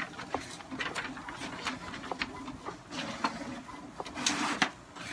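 HP DeskJet GT 5810 inkjet printer printing: the carriage motor runs in short passes with repeated clicks of the paper feed and print head. Paper sheets rustle, loudest near the end.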